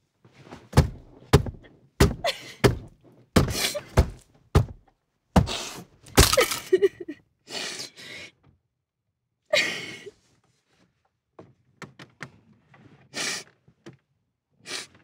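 A young woman sobbing and gasping inside a car while beating her hands against the steering wheel: a rapid run of about ten heavy thuds over the first six seconds, then gasping breaths and a few lighter knocks.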